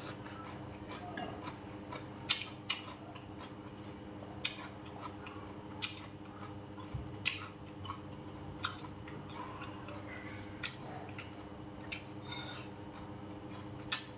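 Eating sounds of one person at a meal: scattered sharp clicks and taps, roughly one every one to two seconds, the loudest a little over two seconds in and near the end, over a steady background hum.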